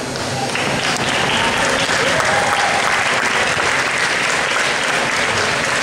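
Audience applauding, with a few voices mixed in; the clapping sets in about half a second in and holds steady.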